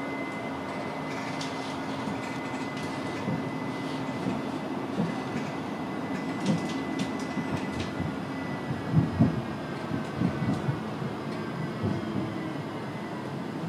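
A tram heard from inside the passenger car while under way: wheels rumbling steadily on the rails under a thin, high electric whine. A run of clicks and a few knocks from the wheels sound about halfway through. The whine drops slightly in pitch near the end.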